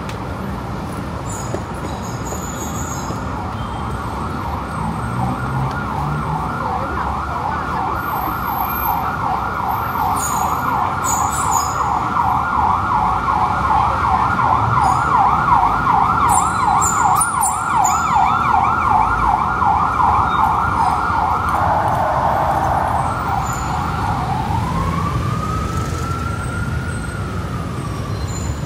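Emergency vehicle siren on rapid yelp, growing louder and then easing off. It switches pattern a few seconds before the end, ending with one slow rising-and-falling wail. Steady road-traffic noise runs underneath.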